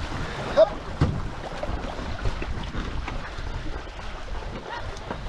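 Two-person racing canoe underway: paddle strokes about once a second and water washing along the hull, with wind on the microphone. A brief high-pitched chirp cuts in about half a second in.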